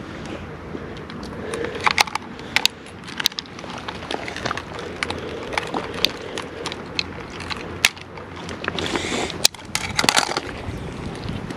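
Scattered sharp clicks and knocks with crunching of loose stones and gravel as fishing gear is handled on a rocky shore, including a plastic fish-lip grip being unclipped. A denser stretch of scraping and crunching comes about nine seconds in, as feet shift on the gravel.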